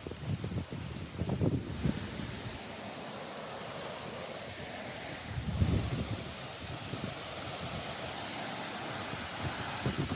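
Steady rush of a small woodland waterfall, growing louder partway through, with low gusts of wind buffeting the microphone.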